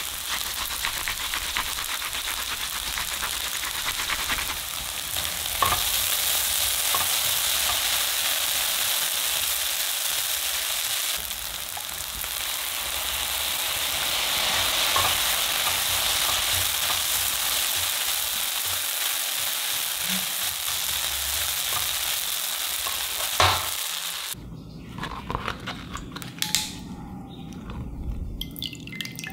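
Potato, onion and egg mixture sizzling steadily in an oiled nonstick frying pan as it is stirred, with occasional sharp knocks of the utensil against the pan. The sizzle swells a little around the time soy sauce goes in, then cuts off about 24 seconds in, leaving quieter small taps and handling sounds.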